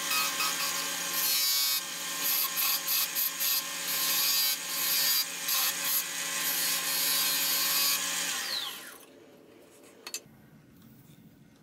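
Wood lathe running with a steady motor hum while a turning chisel cuts a wooden spoon handle, the cuts coming in uneven bursts. About eight and a half seconds in, the lathe winds down with a falling whine and stops, leaving a faint hum and a single short click.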